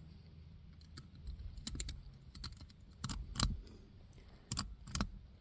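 Scattered light clicks and taps of a metal pick working inside a car seatbelt buckle, fishing out a hair tie that had jammed the latch.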